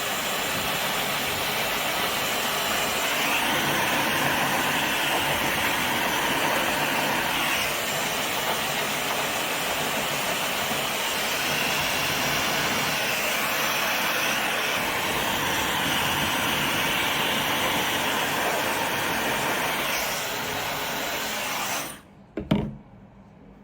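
Steady noise from a small motor-driven appliance, switched on abruptly. It runs evenly, drops a little about 20 seconds in, and switches off about 22 seconds in.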